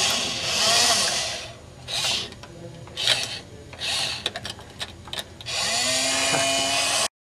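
Small Robotix toy motor whirring in five or so short bursts, starting and stopping, as it works the creature's plastic jaw open and shut on a metal keyring; a few clicks come between the bursts.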